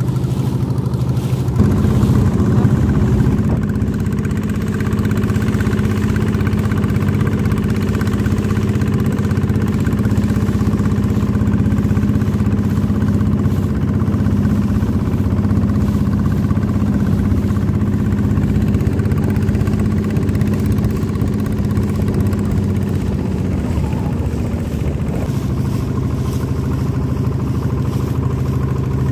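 Small open boat's motor running steadily under way, heard from aboard. Its note steps up a little about a second and a half in and settles back lower a few seconds before the end.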